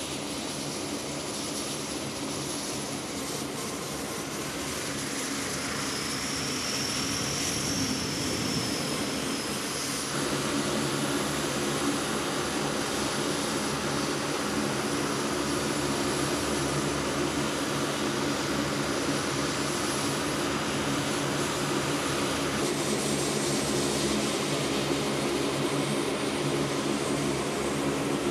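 C-130J Super Hercules turboprop engines running with their six-bladed propellers turning: a steady drone made of several tones, with a high whine that rises and falls between about six and ten seconds in. The drone gets louder about ten seconds in.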